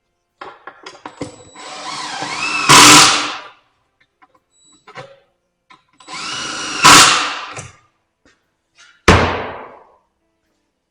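Power drill driving screws in two runs of about two seconds each, its whine rising in pitch as it speeds up, then a single sharp knock about nine seconds in.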